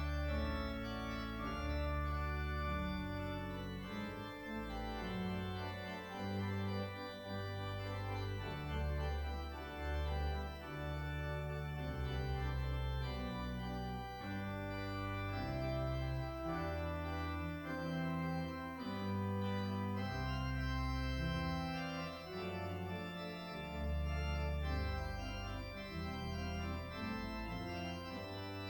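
Organ music: sustained chords over slowly changing low bass notes.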